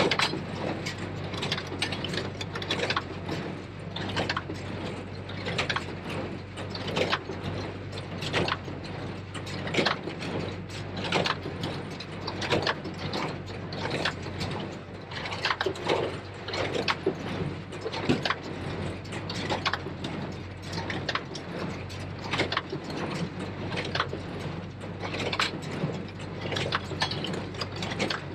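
New Holland 273 small square baler at work behind a Case IH JX75 tractor: a busy clatter of knocks and clanks from the baler's working parts, over the steady hum of the tractor engine.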